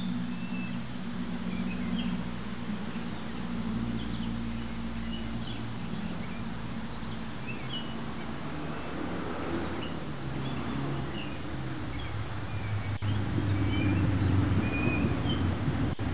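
Small songbirds chirping in short, scattered calls over a steady low engine hum. Near the end the low rumble swells as a vehicle approaches.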